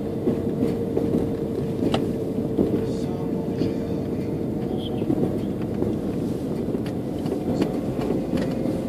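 Car engine and road noise heard from inside the cabin while driving: a steady low hum with a constant drone and scattered small clicks and rattles.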